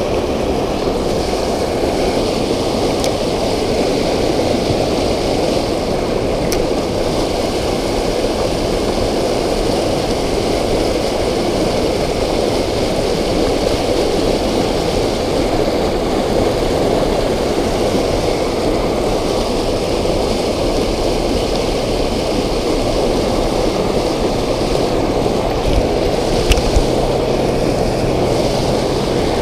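Creek water running steadily, an even rushing sound that holds at one level throughout.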